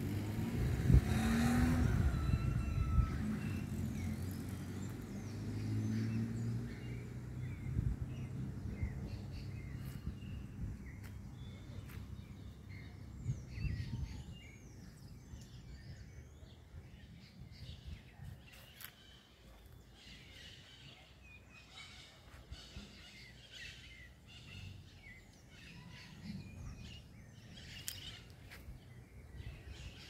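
A motor vehicle passes on the street at the start, a low rumble that is loudest in the first few seconds and fades away. After that, birds chirp again and again over faint background traffic.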